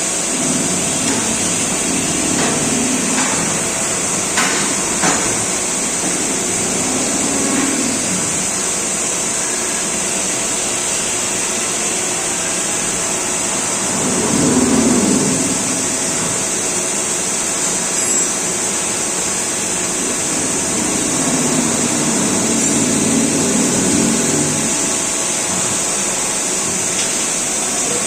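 Steady machine-shop noise: a continuous high hiss over a low rumble that swells now and then, with a few sharp clicks about four and a half seconds in.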